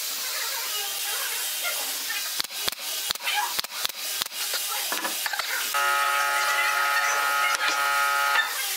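Workshop handling sounds: a run of sharp clicks and knocks as pine frame pieces and a pneumatic nail gun are handled, then a steady buzzing hum for about two and a half seconds near the end.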